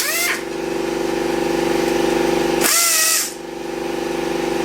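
Power tool running in long spurts with a steady buzz and fine rapid rattle, each spurt broken by a brief hiss and whine, as the rocker-arm bolts on the second cylinder head of an LS 6.0 V8 are run out.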